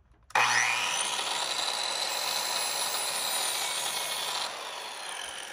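Electric miter saw spinning up and cutting through the end of a wooden board to trim it to length. The motor's whine rises as it starts, about a third of a second in, and the sound gets a little quieter near the end.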